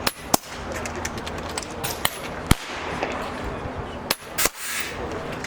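Several PCP air rifles firing on a benchrest line: about seven sharp, irregularly spaced shot cracks, two of them close together near the start, over a steady low hum.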